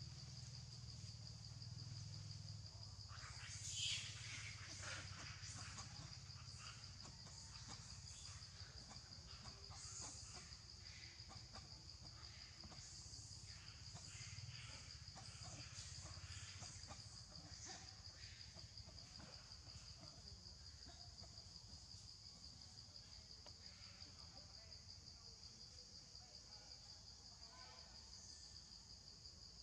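Insects keeping up one steady high-pitched drone, with a brief louder sound about four seconds in and faint scattered ticks and rustles.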